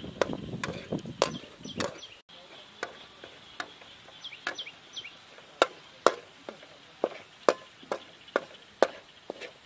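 Metal spatula knocking and scraping against a steel wok while chopped garlic is stir-fried: sharp clacks about twice a second, with busier scraping in the first two seconds.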